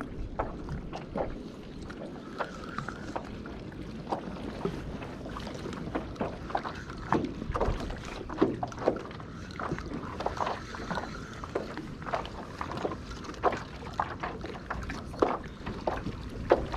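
Small waves slapping and knocking against a kayak's hull in wind, irregular short knocks over a steady rushing of wind and water.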